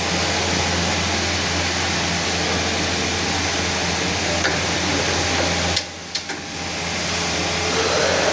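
CNC special-purpose machine running, a steady hum with a hiss over it. About six seconds in the noise drops away briefly with a few clicks, then builds back up.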